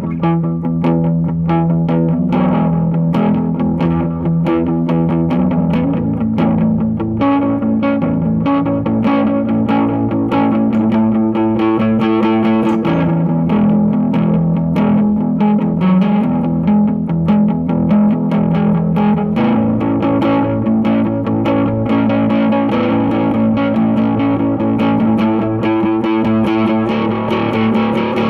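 Ibanez AS73 hollow-body electric guitar played through a VOX AC30C2 valve amplifier, with chorus, reverb and delay on the tone. A steady run of picked notes rings over held notes, without a break.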